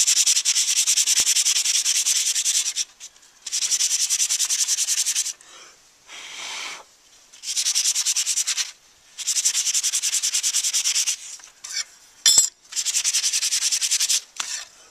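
Sandpaper rubbed by hand in quick short strokes over a small rusty metal cover plate, taking off the rust to bring up the engraved scrolling. It comes in five bouts with short pauses between, and a single sharp click falls a little after the middle.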